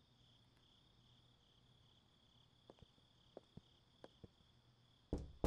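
Crickets chirping steadily at night, with a few faint footstep-like taps in the middle and two heavy thumps near the end.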